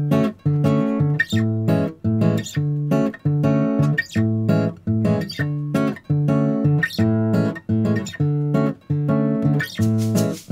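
Background music: acoustic guitar strumming chords in a steady rhythm, about two strums a second.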